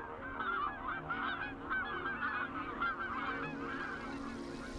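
A large flock of geese in flight, many birds honking at once in a dense overlapping chorus that thins a little near the end.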